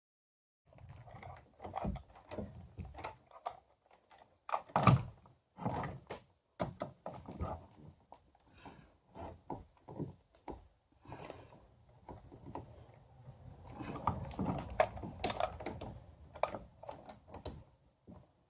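Hands working hard plastic kayak rudder-control parts into their mount: irregular knocks, clicks and scraping, with one sharp knock about five seconds in.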